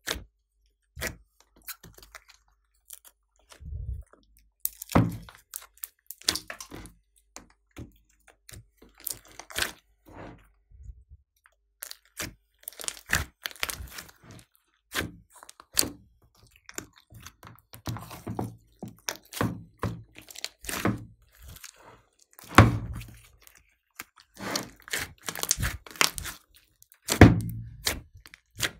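Slime and soft clay decorations being squished and kneaded by hand in a plastic tub: irregular sticky pops, clicks and crackles, coming in spells of several at a time.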